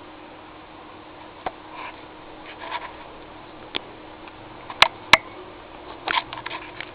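A sleeping pet's snoring, short breathy snorts and snuffles over a faint steady hum, with several sharp clicks, the two loudest about five seconds in.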